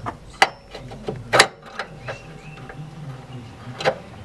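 A few sharp metal clicks and knocks, the loudest about a second and a half in, as a steel aftermarket lower control arm is handled and fitted onto its mount under the car.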